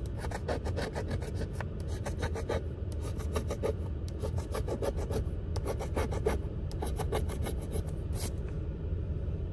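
A coin scratching the silver coating off a lottery scratch-off ticket: quick rasping strokes in short runs, with brief pauses as it moves from one spot to the next.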